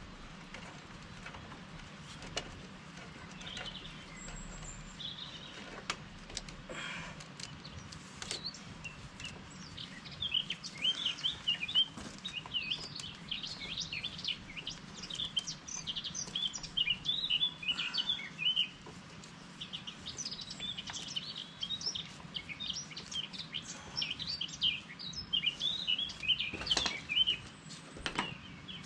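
Small songbirds chirping and twittering in quick, busy runs, sparse at first and much busier from about a third of the way in. Occasional sharp clicks sound through it.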